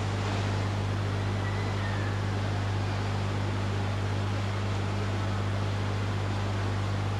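Steady low electrical hum with a constant hiss over it and no voices, the background noise of an old videotape recording through a sound system during silent meditation.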